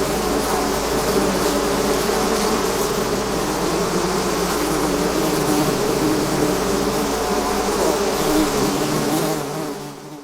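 A swarm of bees buzzing: a dense, steady drone of many overlapping wingbeat tones. It fades out near the end.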